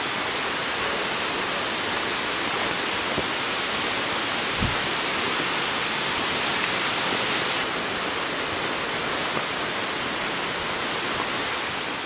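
Waterfall rushing steadily into a pool, an even hiss of falling water with a soft low bump about four and a half seconds in.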